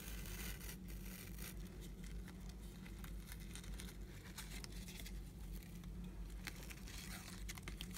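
Faint rustling and crinkling of a paper card, tulle mesh and satin ribbon being handled. A ribbon is pulled through punched holes with a large-eye needle, giving small irregular ticks and rustles.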